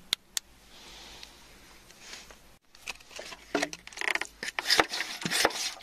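Two sharp clicks near the start, then a soft hiss. About two and a half seconds in, a metal tool starts scraping and crunching through wet, gritty soil in a quick run of clicks and scrapes.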